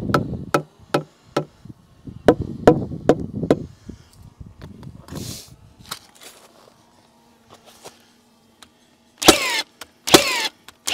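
Hammer blows on wood, about three a second, for the first three and a half seconds as a post is driven into place on the sill plate. After a lull, three loud short power-tool bursts come about a second apart near the end.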